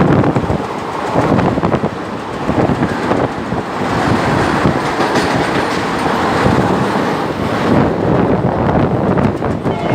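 Konkan Railway train running on the rails: a loud, steady rumble with wheels clattering over the track.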